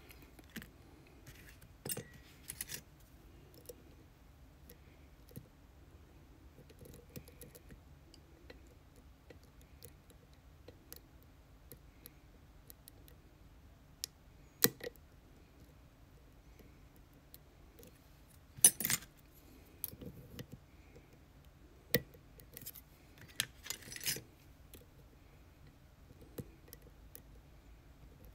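Lock pick and tension wrench working inside a challenge lock during picking: scattered small metallic clicks and short scrapes, with a louder cluster of clicks about two-thirds of the way through.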